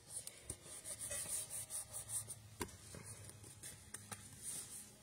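Fingers rubbing over cardstock to press down a freshly taped join, a rapid run of short swishing strokes, with a couple of light knocks of the card against the desk.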